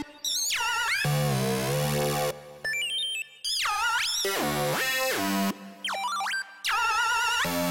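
Electronic techno music played on the Hive 2 software synthesizer: synth notes glide steeply down and back up with a wobbling vibrato over a low bass line, in short phrases that stop and restart abruptly.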